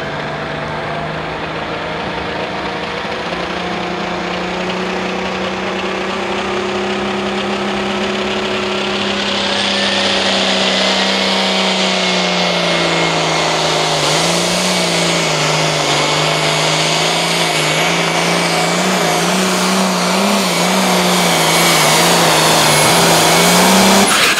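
Case IH MX285 hot farm pulling tractor's diesel engine running flat out under load, pulling the sled. A high whine rises about ten seconds in and then holds steady. The engine's pitch dips and wavers as the load builds, and the sound grows louder throughout.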